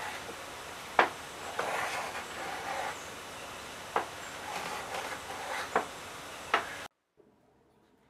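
Hand-tool work at a wooden workbench: rasping back-and-forth strokes with a sharp knock every second or few. The sound cuts out abruptly near the end.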